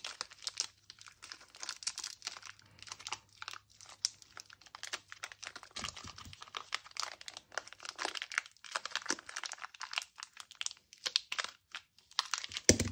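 Thin clear plastic bag crinkling and crackling in irregular bursts as hands squeeze and work a Bakugan toy out of it.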